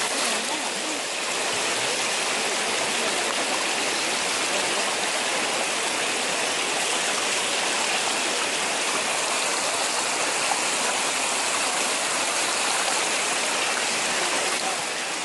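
Steady rush of shallow stream water running over stones, churned by a crowd of eels.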